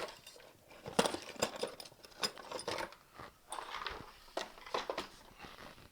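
Small metal tools clinking and clattering against each other in a series of irregular clicks and knocks, some ringing briefly, as pin punches are rummaged through.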